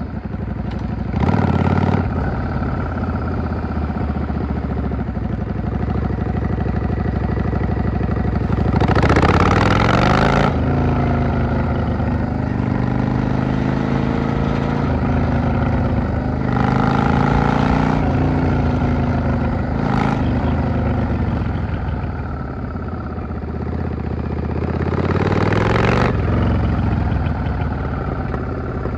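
Yamaha V-Star XVS650 bobber's V-twin engine running while riding, its pitch climbing and dropping again and again as it accelerates through the gears and eases off, with several louder surges under hard throttle.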